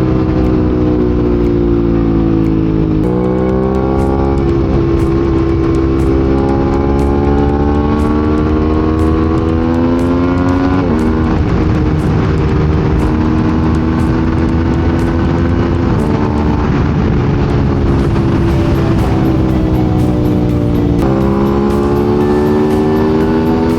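Motorcycle engine under way at freeway speed, its pitch climbing and then dropping sharply as it shifts up a gear about four times, over heavy wind rush.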